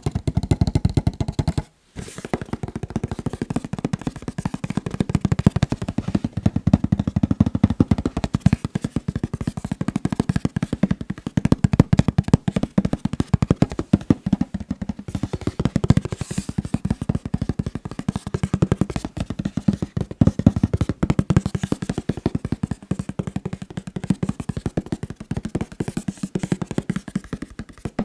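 Fast fingertip tapping on a box: a dense, unbroken stream of quick taps, with a brief break just before two seconds in.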